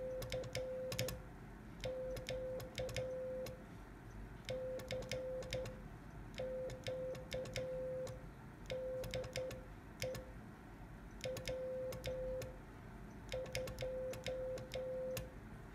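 Hand-keyed Morse code from a one-transistor 2N2222A QRP transmitter, heard on a general coverage receiver as a steady beep switched on and off in groups of short and long tones. Sharp clicks come with the keying.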